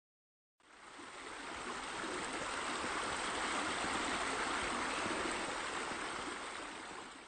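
Water running steadily, a continuous rushing splash that fades in and fades out again.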